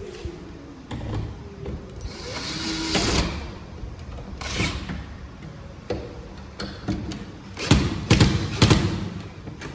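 Hand work on an aluminium door's lock hardware: a short rasping scrape, then separate knocks, with a quick run of loud knocks and taps near the end.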